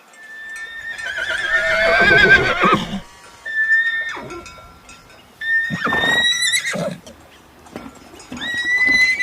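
Horse whinnying four times: a long, quavering whinny first, then three shorter ones.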